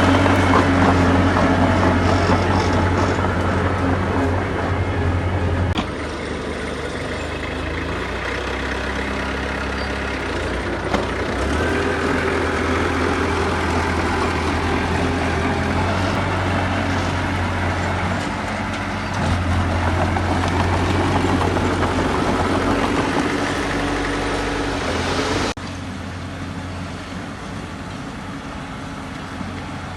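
Diesel engines of heavy earthmoving machinery running steadily, with the sound changing abruptly about six seconds in and again near the end.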